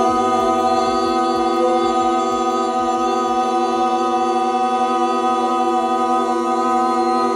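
Male singing voice holding one long note steadily at a single pitch, for as long as breath allows.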